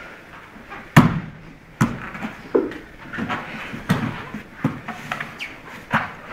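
Slaps and thuds of jiu-jitsu grappling on foam puzzle mats, as hands, feet and bodies in gis hit the floor, about six times. The hardest smack comes about a second in.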